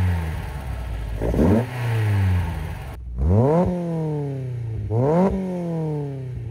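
VW 2.0 ABA eight-valve four-cylinder on twin Weber DCOE carburetors, idling and free-revved three times in short throttle blips, each rev climbing quickly and falling back to idle. The sound comes through a 2.25-inch header-back exhaust with two resonators and a Borla muffler.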